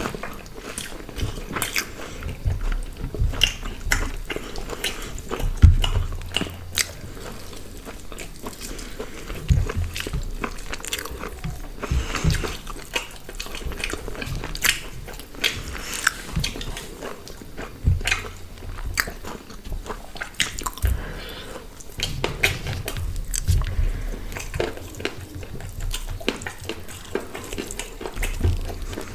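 Close-miked eating: irregular bites, chewing and crunchy crackles as grilled chicken and paratha are torn and chewed, with occasional low thumps.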